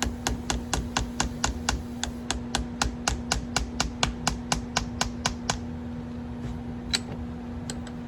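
Rapid, regular mechanical clicking, about four clicks a second, that stops about five and a half seconds in and is followed by a few lone clicks, over a steady low hum.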